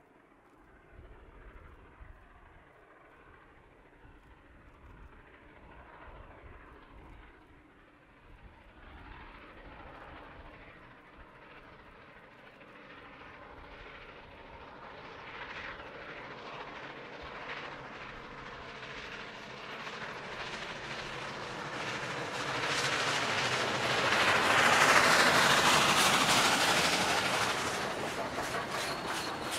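Union Pacific train double-headed by the steam locomotives Big Boy 4014 and 844, with diesel units trailing, approaching and passing close by. Its rumble and wheel clatter on the rails grow steadily louder, peak about 25 seconds in as the locomotives go by, then ease slightly as the cars roll past.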